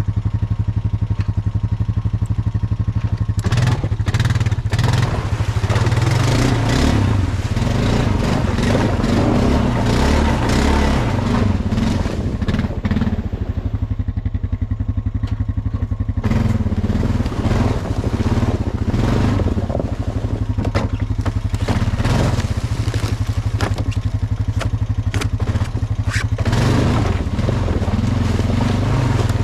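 Honda 420 ATV's single-cylinder four-stroke engine running steadily while the quad is ridden over a leaf-covered forest trail. From about three seconds in, dense crunching and clattering from the tyres over leaves and sticks and the rattling machine, easing off near the end.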